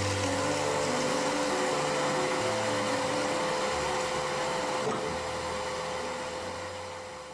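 A machine's motor running steadily, an even hiss with a constant hum, which fades out near the end.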